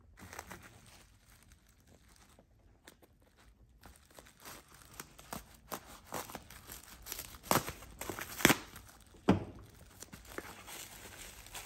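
Clear plastic wrap around a cardboard package crinkling and rustling as it is handled, then a pocketknife cutting through the wrap and packing tape, with several sharp rips and snaps in the second half.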